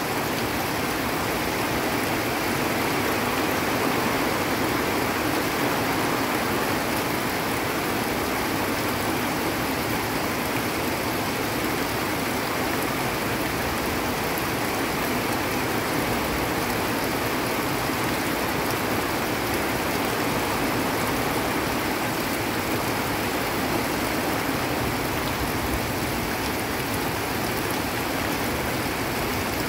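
Heavy rain falling on hillside vegetation together with muddy runoff water rushing down a slope, making a steady, unbroken rushing noise.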